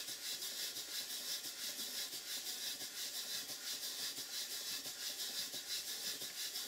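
Large horizontal stationary steam engine running on low-pressure compressed air: its exhaust beats come as a rapid, even, soft hissing chuff, quietened by a pipe fitted over the exhaust.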